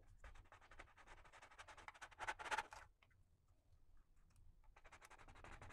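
A fluted plastic round cutter pressed and worked through a flour tortilla on a wooden board: faint dry scratching and rustling, loudest a little after two seconds, dropping off around three seconds and picking up again near the end.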